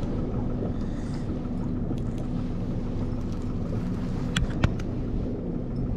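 Boat motor running steadily at low speed, a low steady rumble, with two or three sharp clicks about four and a half seconds in.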